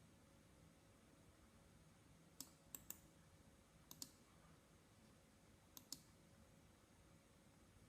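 Faint computer mouse clicks, several in quick pairs, over near-silent room tone.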